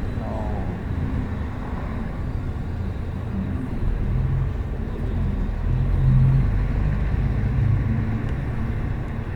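Bus moving, heard from inside: steady low engine and road rumble, with the engine note growing louder about four to six seconds in.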